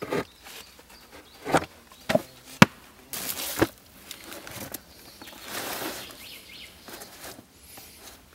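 Several sharp knocks on wood in the first few seconds, then rustling and scraping as gloved hands press and tuck moss into the gaps along split logs.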